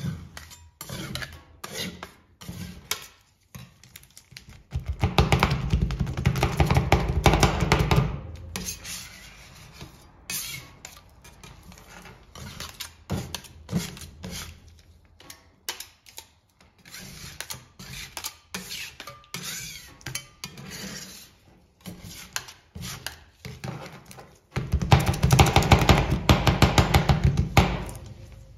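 Two metal spatulas chopping and scraping on a stainless steel rolled-ice-cream cold plate, cutting chocolate bar pieces into a liquid cream base. The chopping comes in two loud stretches of fast strokes, about five seconds in and again near the end, with lighter taps and scrapes between.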